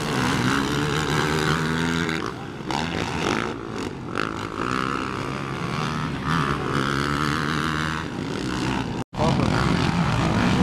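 Racing quad (ATV) engines revving up and down as the quads race round a motocross track, several engine notes rising and falling in pitch. The sound cuts out for an instant about nine seconds in.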